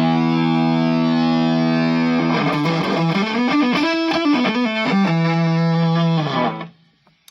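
Electric guitar through a Fuzz Face–style fuzz pedal into an Egnater Tweaker 15 amp, with the fuzz full up and the bias set to the sweet spot. It plays a held fuzzy note, then a quick run of notes, then another held note that dies away about six and a half seconds in.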